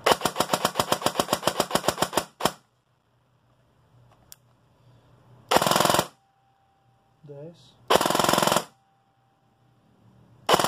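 Airsoft M4 electric gun (AEG) with Amoeba 13:1 gears, a short-stroked four-tooth piston and a ZCI 22TPA motor firing on full auto: a rapid burst of about two seconds, one more lone shot, then two short bursts of about half a second each, and another beginning near the end.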